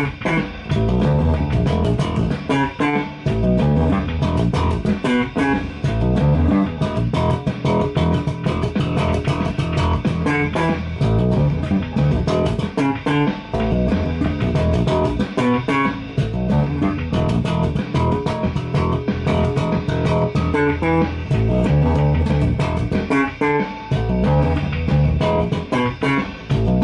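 Background music: an instrumental track led by guitar over bass guitar, with a steady rhythm.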